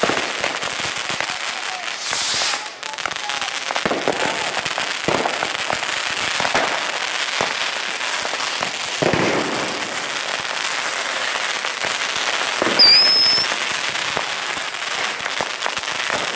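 Fireworks going off at street level: ground fountains and firecrackers crackling and popping without pause. A short high, wavering whistle cuts through about three-quarters of the way in.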